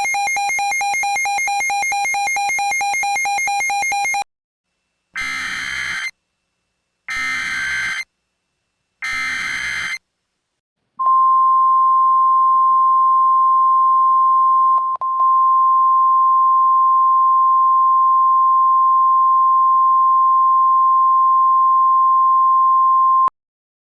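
A buzzy pulsing tone for about four seconds, then three short bursts of EAS SAME header data, then the NOAA Weather Radio 1050 Hz warning alarm tone, one steady tone held for about twelve seconds with a brief break near the middle.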